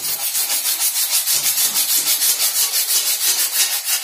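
Hacksaw blade cutting through a white plastic water pipe by hand, in quick, even back-and-forth strokes.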